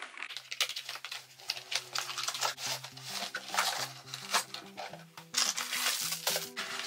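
Cardboard box and plastic packaging being handled: a run of irregular rustles and crinkles as a light box is slid out of its box, over soft background music.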